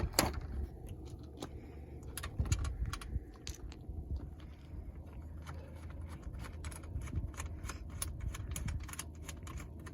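Light, irregular clicking of a small screw being turned in with a hand screwdriver while the generator is put back together, several clicks a second at times.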